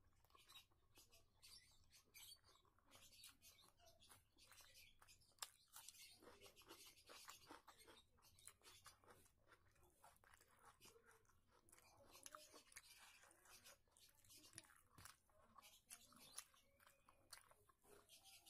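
Quiet, wet clicking and crackling of fingers mixing cooked rice on a steel plate, mixed with mouth chewing sounds; many small irregular clicks throughout.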